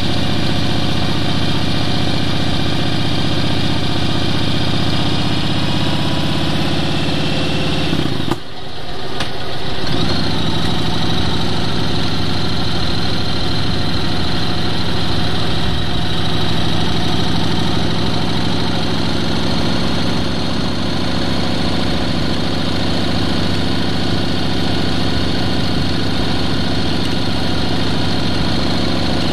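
Vehicle engine running steadily while driving along a country road. About eight seconds in the sound briefly dips, then picks up again at a slightly different pitch.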